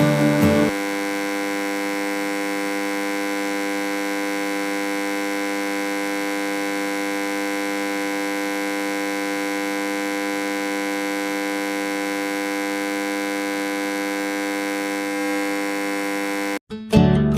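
Background music: a long, perfectly steady held electronic chord that drones unchanged after a brief bit of guitar music. It cuts off abruptly near the end, and strummed music resumes.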